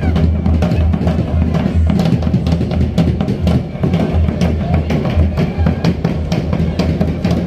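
Drum-led music with a steady bass beat and frequent sharp drum strikes.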